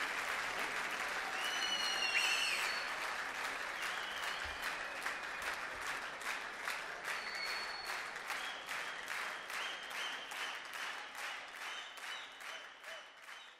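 Large concert audience applauding, with a few whistles about two seconds in. The applause settles into rhythmic clapping in unison, about three claps a second, and fades away near the end.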